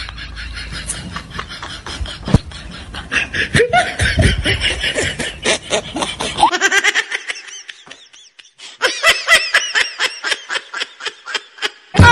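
Laughter: a quick, even string of short giggling 'ha-ha' pulses, about five a second, with a brief gap partway through and a short loud burst right at the end.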